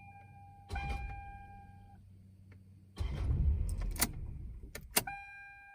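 A 1999 Toyota Camry's starter humming with the key held at start, without cranking the engine: the starter's dead spot, which needs replacing. The hum comes in about three seconds in, after a short steady tone, with two sharp clicks during it.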